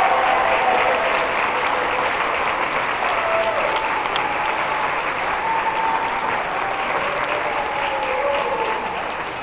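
Audience applauding steadily, with a few voices heard faintly over the clapping.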